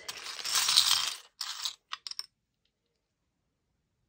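A small plastic bag crinkling as a pack of miniature plastic dolls' house dishes is tipped out, the pieces clattering onto a craft mat for about a second, followed by a few light clicks as they are handled.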